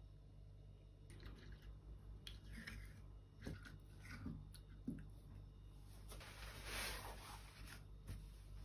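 Faint scraping and squishing of a spoon stirring oil into a ground spice rub in a stone mortar, then about six seconds in a longer rustle of paper towels being torn off and spread out.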